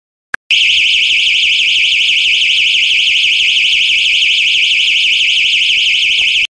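DNI4205 12 V electronic alarm siren sounding a loud, high-pitched, fast-warbling tone. It starts just after a short click and cuts off suddenly near the end.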